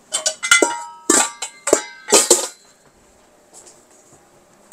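Kitchenware clattering: a quick run of clinks and knocks, some with short ringing, as dishes or utensils are handled. It stops about two and a half seconds in.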